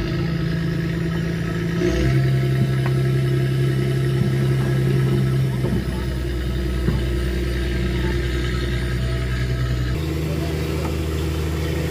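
Fishing trawler's diesel engine running steadily, its pitch shifting abruptly about two seconds in and again near the end.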